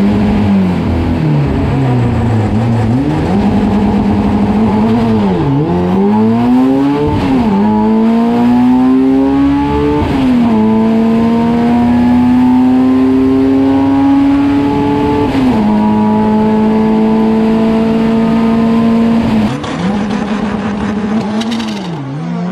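A race truck's engine heard from inside the cab under full throttle down the drag strip. It is shifted up about three times, the pitch dropping at each shift and climbing again. Near the end the sound drops in level and the engine is heard revving up and down.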